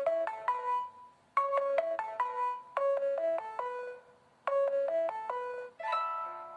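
A preloaded Samsung Galaxy Trend Plus ringtone playing: a short falling melodic phrase of bright notes that loops about every 1.5 seconds. Near the end it gives way to a different tone.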